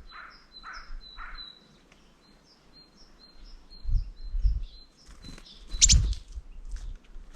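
Small birds chirping with many short, high, repeated calls. Near the start there is a run of lower rhythmic notes, and a few dull thumps come around four and six seconds in.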